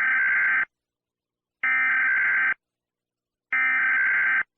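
Emergency Alert System SAME header: three identical bursts of digital data tones, about a second each with about a second of silence between them, the coded header that opens an EAS alert.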